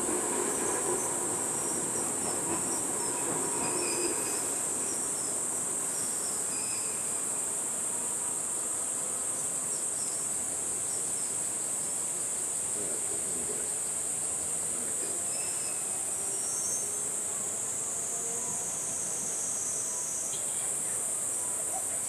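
Summer insect chorus, a steady high-pitched buzzing drone with no breaks.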